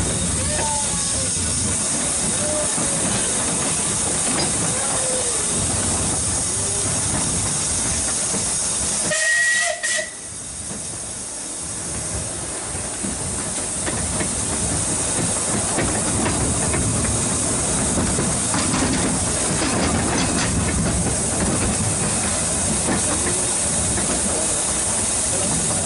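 Steam locomotive Otter of the 2 ft gauge Groudle Glen Railway hauling its carriages, heard from a carriage behind it: a steady hiss of steam over the running of the train on the rails. A short whistle sounds about nine seconds in; the level then dips for a few seconds before the steady running noise builds again.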